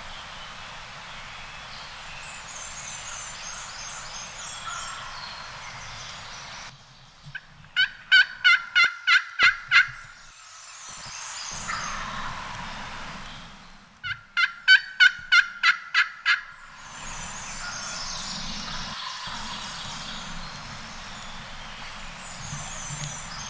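Two runs of hen turkey yelps from a hunter's turkey call, about eight evenly spaced yelps at roughly four a second, several seconds apart, calling to a gobbler. Faint songbirds chirp between them.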